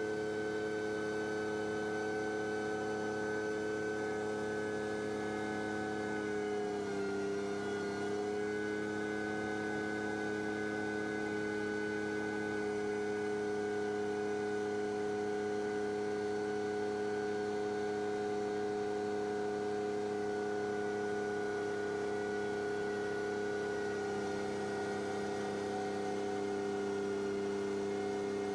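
Mobile crane's diesel engine droning steadily at a held speed while it drives the lift, a constant hum of several pitched tones that dips briefly in pitch about seven seconds in.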